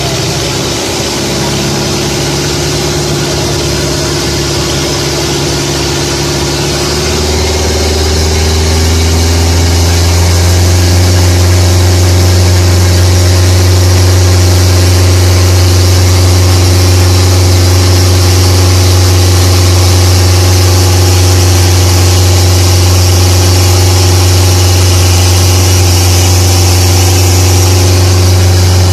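Long-tail boat engine running steadily; about seven seconds in its tone drops deeper and it gets a little louder, then holds.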